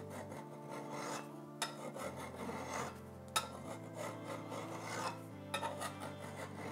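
Hand file rasping in slow, repeated strokes across the curved edge of a steel card scraper cut from an old saw blade, smoothing it into a fair curve.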